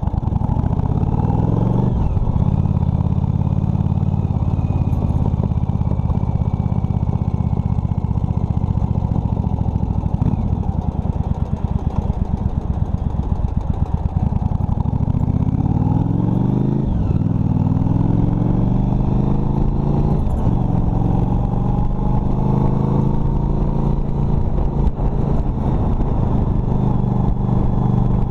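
Motorcycle engine under way, heard from the saddle. It revs up and drops at a gear change about two seconds in, eases off to a slower, uneven beat near the middle, then pulls away again with a rising note and shifts up twice.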